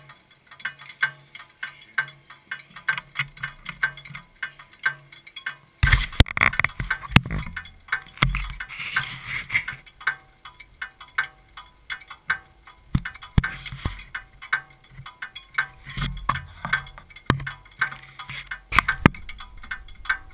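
Light, steady ticking at a few ticks a second. From about six seconds in, a helmet-mounted action camera is handled and repositioned, giving loud knocks, rubbing and scattered clicks.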